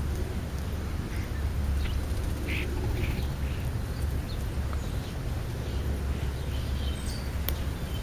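Small birds, European starlings and house sparrows, giving short scattered chirps and harsh calls while feeding, over a steady low rumble.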